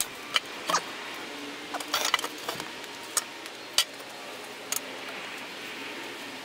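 Potato gun barrel and rod being handled: about ten scattered sharp clicks and light knocks over a steady hiss.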